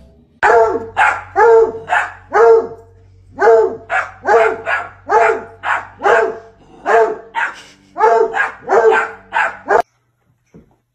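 Dog barking over and over, about two barks a second for most of ten seconds, then stopping abruptly.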